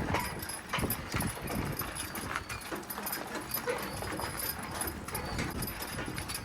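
Hoofbeats of a team of two mules walking in harness: irregular clopping knocks over a rough background noise.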